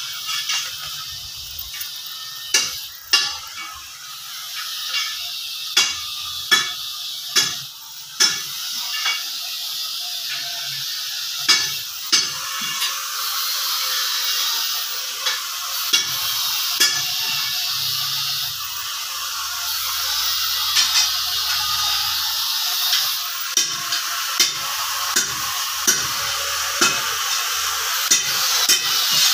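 Steady sizzling hiss of workshop noise, with irregular sharp clicks and taps every second or two.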